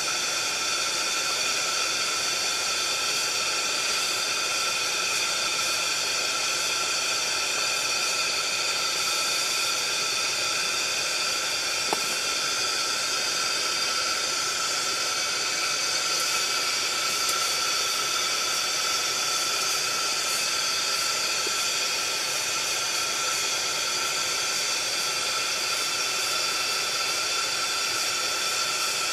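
Steady hiss of a chrome pressure lantern's burner, with a single faint click about twelve seconds in.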